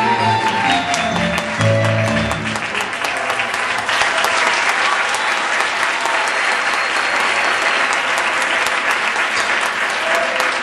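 Music with held notes and a low bass line stops about two and a half seconds in, and audience applause takes over, with many hands clapping steadily; music faintly starts again near the end.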